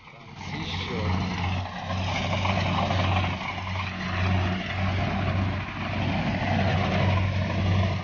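Rice combine harvester running as it cuts through standing rice: a steady diesel engine drone with a low hum that swells and fades every second or so, under the rushing noise of its cutter and threshing machinery.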